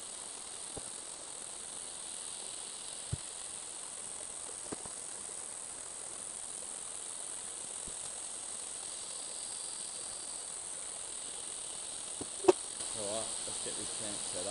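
Steady insect chorus of trilling crickets in the evening bush. A few faint clicks and knocks sound over it, the loudest a single sharp knock near the end.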